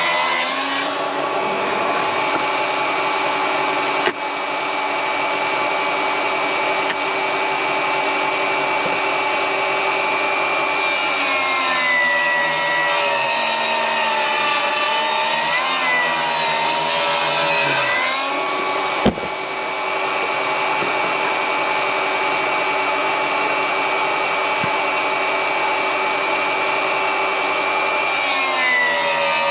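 Milwaukee M18 cordless table saw running steadily while ripping one-inch rough-sawn hard (rock) maple. The motor's whine sags and wavers in pitch as the blade loads up in the cut, through the middle and again near the end. There is a sharp click a little past halfway.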